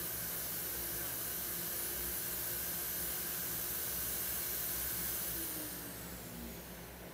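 An electric motor appliance running with a steady hiss, then switched off about five and a half seconds in: its pitch falls and the noise drops away as it winds down.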